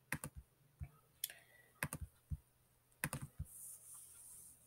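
Faint, irregular clicks of a computer mouse and keyboard in use, about ten of them, spaced unevenly, followed near the end by a soft hiss.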